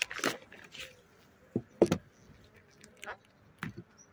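Handling noise from a beehive's plastic cover sheet being lifted off and laid aside: a series of short crackles and knocks, the loudest a little under two seconds in.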